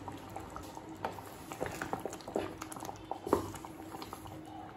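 Thick egg curry bubbling in a pot, with scattered soft pops and a few sharper clicks.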